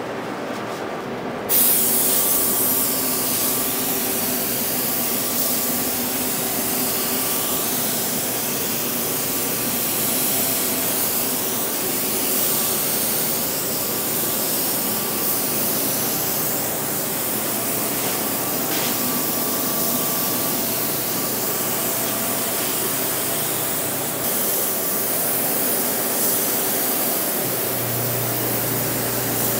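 Spray gun laying down black ground coat: a steady, loud hiss of compressed air and paint that starts suddenly about a second and a half in. Under it runs the steady hum of the inflatable spray booth's fan.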